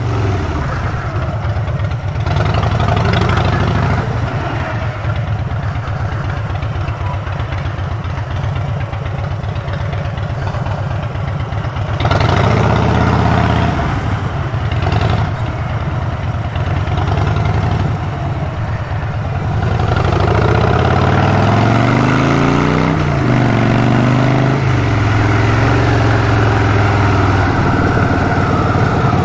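Motorcycle engine running while being ridden, its pitch rising and falling with the throttle, louder for stretches about twelve seconds in and again from about twenty seconds in.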